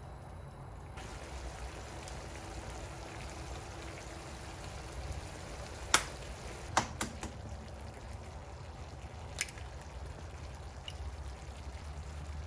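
Thick tomato and vegetable sauce simmering in a non-stick frying pan, bubbling steadily. A few sharp clicks and taps come about halfway through, the loudest first.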